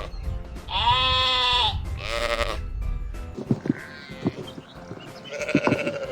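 Sheep bleating several times, long wavering cries, over soft background music that fades out partway through.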